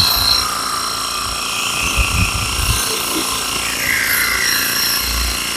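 Harbor Freight battery-powered portable pressure washer running with the trigger held: its pump motor's steady whine with the hiss of the water spray through the 25-degree nozzle.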